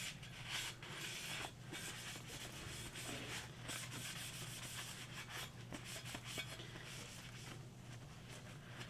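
Wipes damp with alcohol rubbing over the resin vat parts in irregular scrubbing strokes, cleaning off spilled resin. A low steady hum runs underneath.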